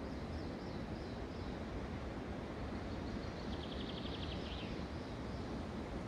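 Steady wind through the forest, a constant rushing noise, with small songbirds calling over it: a few short high chirps in the first second or so, and a fast trill of about eight notes a second lasting just over a second around the middle.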